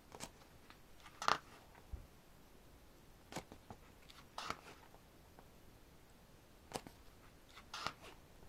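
Pages of a photo book being turned by hand: a series of brief paper rustles and flaps, the loudest about a second in.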